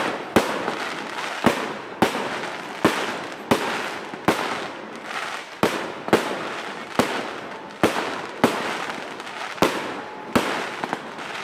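Aerial fireworks going off in a steady run of sharp bangs, about one every two-thirds of a second, with continuous crackling from glittering bursts between them.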